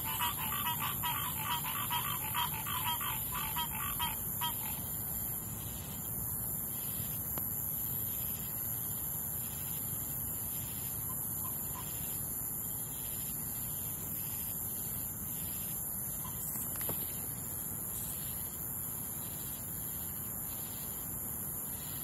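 A tree frog calling in a rapid, pulsing trill that stops about four seconds in, over a steady high-pitched chorus of crickets and cicadas.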